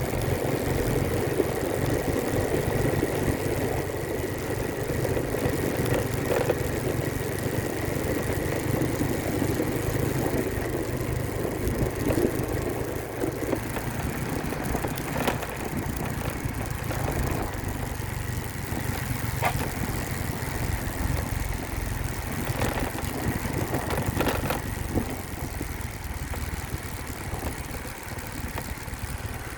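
Motor vehicle engine running steadily with a low rumble, a faint steady whine through the first half, and a few light knocks in the second half.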